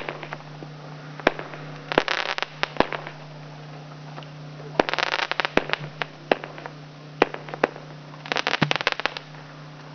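A 36-shot 200 g consumer fireworks cake firing red and green shots with reports: clusters of rapid sharp bangs and crackling about two seconds in, about five seconds in and near the end, with single bangs in between. A steady low hum runs underneath.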